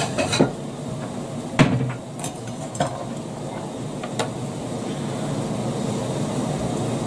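A few sharp knocks and clatters of a plate being fetched from a kitchen cupboard, the loudest about one and a half seconds in, over a steady low background hum.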